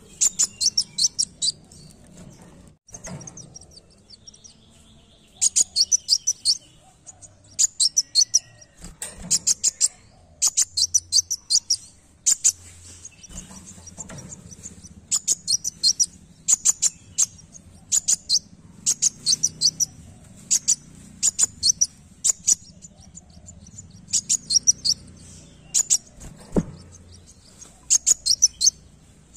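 Male sunbird (kolibri wulung) singing in full voice: repeated bursts of quick, sharp, high-pitched notes, each burst lasting about a second, coming every second or two.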